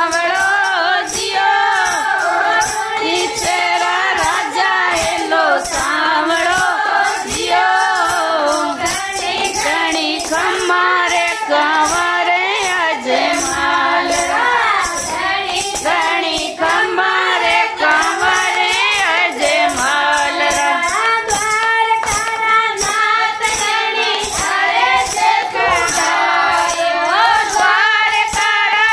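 Group of women singing a Marwari devotional bhajan in unison, with a steady beat of hand claps.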